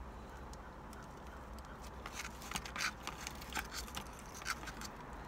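Light clicks and crinkles of takeout food packaging being handled, mostly in the second half, over a low steady hum.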